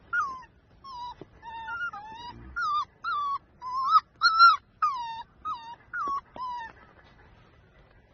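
Puppies whining, a run of about a dozen short, high-pitched whimpers that bend up and down in pitch and stop about seven seconds in. They are whining for attention, begging to be picked up.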